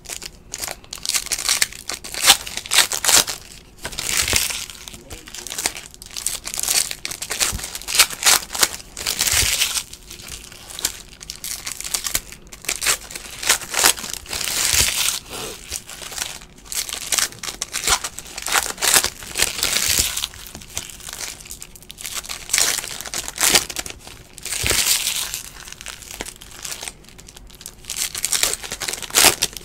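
Foil trading-card pack wrappers crinkling and tearing as packs are ripped open and the cards handled, in repeated irregular bursts.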